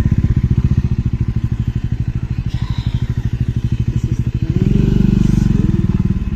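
Motorcycle engine running with an even, rapid pulsing beat. It grows louder for about a second, around five seconds in.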